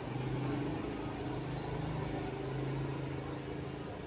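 A motor engine running steadily, a low even hum.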